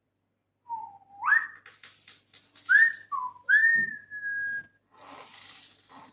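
A man whistling in amazement: a rising whistle, a few short notes, then a longer held note, with a soft rustle near the end.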